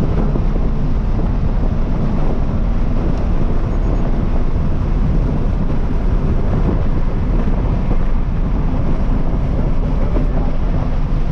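2023 Toyota GR86's 2.4-litre flat-four with the GR exhaust, driven hard on a racetrack, with heavy road and wind roar over a loud, steady drone.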